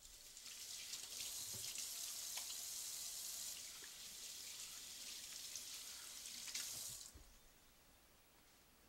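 Kitchen tap running into a stainless-steel sink while hands are washed under the stream. The water is shut off about seven seconds in.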